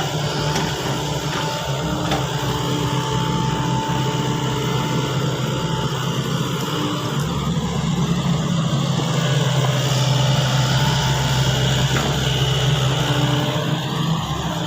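Sany excavator's diesel engine running steadily, growing a little louder about halfway through.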